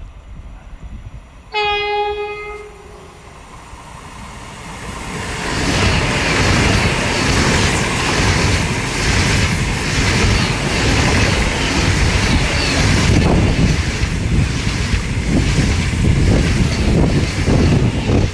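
A train horn sounds one blast of about a second, then a train passes close by, loud and sustained, its wheels clattering rhythmically over the rail joints.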